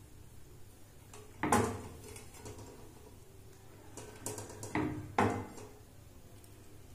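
A few sharp knocks and light handling sounds as dough is folded by hand on a glass plate: one knock about a second and a half in, then a cluster of two or three around five seconds.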